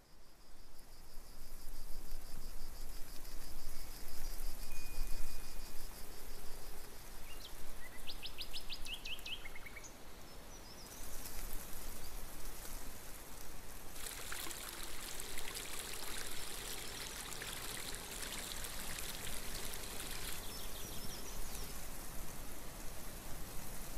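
Nature ambience: a steady rushing, water-like hiss with bird calls. One bird chirps, then gives a quick run of short notes about a third of the way in, and the hiss thickens into a denser crackling patter from a little past halfway.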